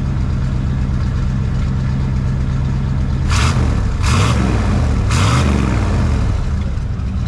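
Truck engine idling through an exhaust with the catalytic converter cut out, a straight pipe and the muffler kept, blipped three times in quick succession about three to five seconds in.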